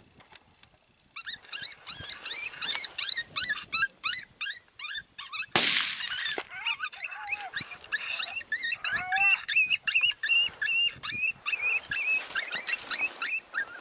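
Coyote yelping and yipping in rapid runs of short, high, falling cries, several a second. A single loud bang sounds about five and a half seconds in.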